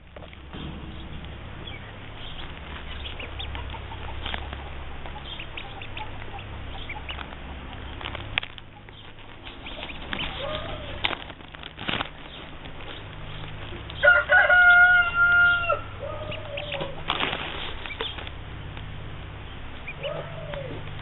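Short low calls from fowl, a few scattered through and one longer, louder drawn-out call about two-thirds of the way through, over rustling and scattered sharp knocks close to the microphone.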